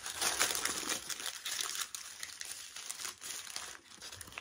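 Paper burger wrapper crinkling and rustling as it is unwrapped by hand, loudest in the first second and easing off after.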